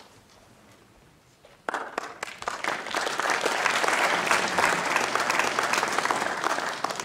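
Audience applauding: the clapping starts suddenly a little under two seconds in, swells within about a second to full, steady applause and holds there.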